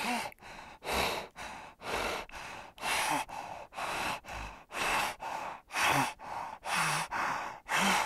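Spotted hyena breathing heavily in and out, a louder breath and a softer one in turn about once a second, with a faint voiced catch on some breaths.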